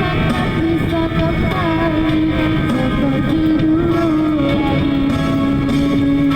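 A song with guitar accompaniment and a voice holding long, wavering notes.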